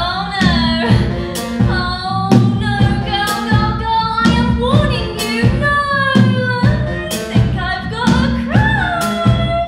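Woman singing a musical-theatre song live, with band accompaniment: steady low bass notes and a regular percussive beat under her voice, which slides between held notes.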